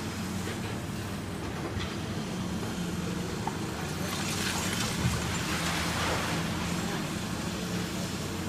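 High-reach demolition excavator's diesel engine running steadily, with scattered crackles of breaking material and a sharp knock about five seconds in.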